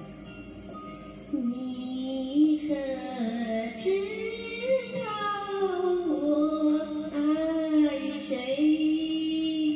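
A woman singing a slow ballad into a handheld microphone over recorded backing music. Her voice comes in about a second and a half in, with long held notes that slide up and down.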